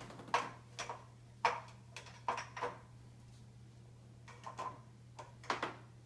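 Plastic cups set face down on a dishwasher's top wire rack: a string of light knocks and clacks, about seven spread unevenly, over a steady low hum.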